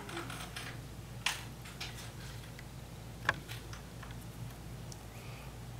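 A few faint clicks as the knitting needle and glass seed beads are handled, the sharpest about three seconds in, over a low steady hum.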